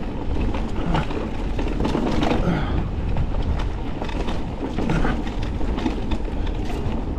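Forme electric mountain bike rolling along a dirt singletrack: steady tyre noise and a low rumble, with frequent small rattles and clicks from the bike over the bumpy ground.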